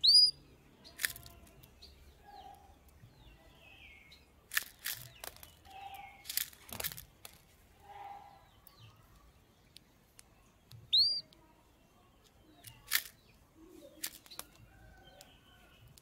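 A caged canary gives two single rising chirp calls, one right at the start and one about eleven seconds in. Between them come several short sharp clicks and wing flutters as it moves about the cage.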